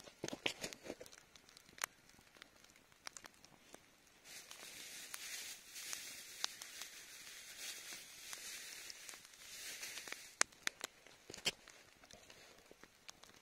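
Campfire embers crackling with scattered sharp pops, joined by a steady hiss from about four to ten seconds in.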